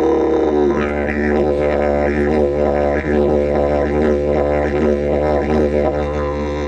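Didgeridoo playing a continuous low drone. A held overtone at the start gives way about half a second in to a rhythmic pattern of shifting overtones, roughly two to three pulses a second, shaped by the player's mouth and breath.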